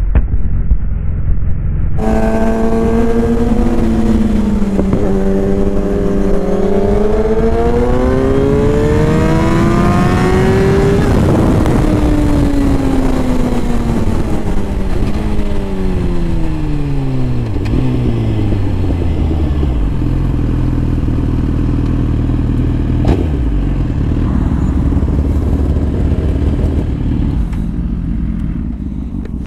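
Sportbike engine revving up in one long pull, its pitch climbing for several seconds, then winding down as the bike slows. It settles to a low, steady idle, with wind rushing past throughout the ride.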